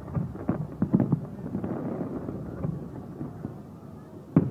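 Aerial fireworks shells bursting: a quick run of bangs in the first second or so, a quieter stretch, then a loud cluster of bangs near the end.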